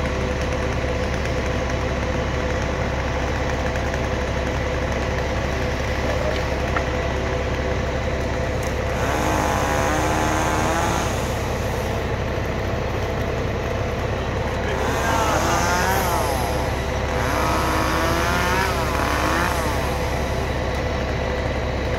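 An engine idles steadily, and from about nine seconds in a chainsaw revs up and down in a few short bursts of a second or two each.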